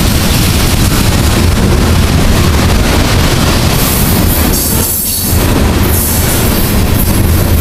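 Loaded coal cars of a slow freight train rolling past at close range: a loud, steady rumble of steel wheels on rail. A high-pitched wheel hiss swells twice in the second half.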